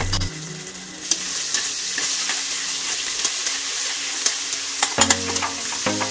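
Garlic paste, green chillies, herbs and cumin seeds sizzling in hot oil in a pressure cooker, the sizzle starting about a second in, while a metal ladle stirs and scrapes repeatedly against the base of the pot. Background music comes in near the end.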